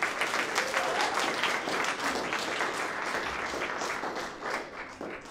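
Small audience applauding with many hands clapping, dying away near the end.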